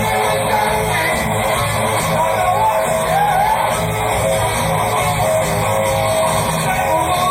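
Live hard rock band playing at full volume: electric guitar carrying sustained notes with a few bends over bass and drums, in a muddy concert recording.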